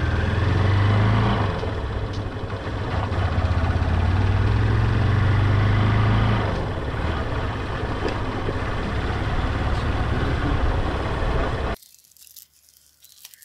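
Motorcycle engine running with wind and road noise while riding, heard through a camera mounted on the handlebar. The engine drone swells twice, then the sound cuts off near the end.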